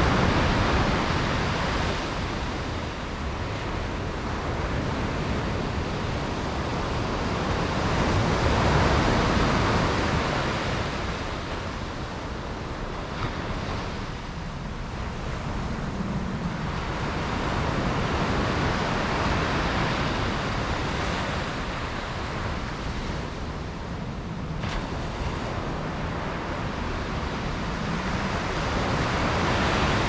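Sea waves breaking and washing on the shore in a steady surf. Each wave swells and then falls back about every ten seconds.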